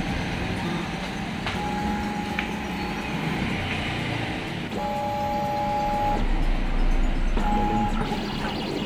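Vinyl cutting plotter cutting a laminated decal: its motors whine in steady tones that start and stop every second or two as the blade carriage moves, over a constant machine and room noise. A low rumble swells briefly past the middle.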